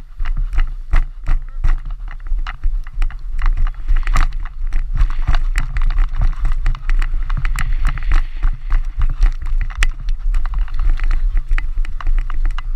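Wind buffeting the microphone of a helmet-mounted action camera as a steady low rumble, with a quick run of sharp knocks, a few a second, from the camera jolting on the moving player's helmet.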